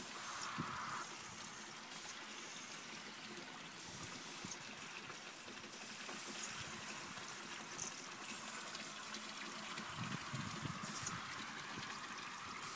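Freshly pressed red wine trickling and streaming out through the perforated stainless-steel cylinder of a pneumatic bladder press and running down the plastic bag wrapped around it, as the bladder is inflated. The hiss is steady, and a low rumble comes in near the end.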